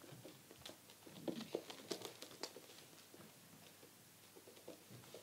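Faint rustling and scuffling as a blanket is handled and puppies shift about on a sofa, with a few soft clicks and knocks between about one and two and a half seconds in.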